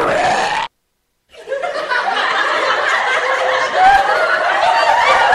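The tail of a short recorded voice clip, a brief gap, then a recorded crowd laughing, many voices at once, from about a second and a half in.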